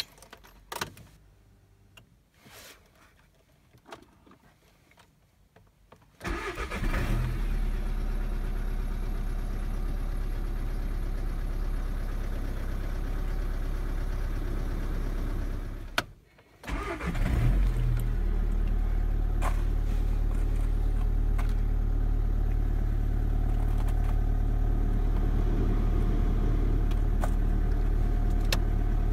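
Volkswagen Golf 6 1.6 TDI four-cylinder diesel cold-started twice, heard from inside the cabin. After a few faint clicks it catches about six seconds in and settles into a steady cold idle. After a short break it starts again and idles steadily.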